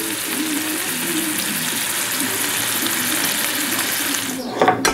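Trout steaks frying in hot oil in a pan, a steady sizzling hiss with fine crackling. It breaks off near the end with a couple of sharp clicks.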